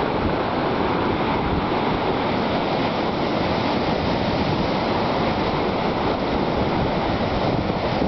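Ocean surf breaking on rocks and washing up the sand, a steady rush of white water, with wind buffeting the microphone.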